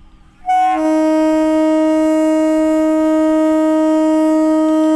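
EMU local train's air horn sounding one long, steady blast that starts about half a second in.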